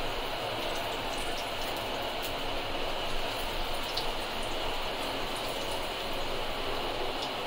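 Puri deep-frying in a kadai of hot oil: steady sizzling and bubbling of the oil, with a few faint pops.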